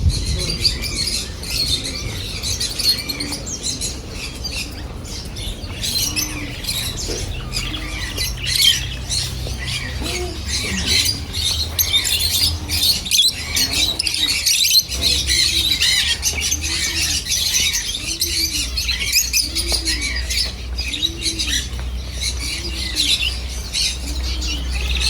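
Many caged birds chirping and squawking together in a dense, continuous high chatter, over a steady low hum. In the second half a low call repeats about once a second.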